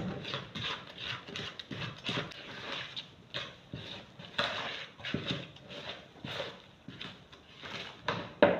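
Wooden spoon beating creamed butter and sugar by hand in a plastic mixing bowl: a steady run of soft scraping strokes, about three a second.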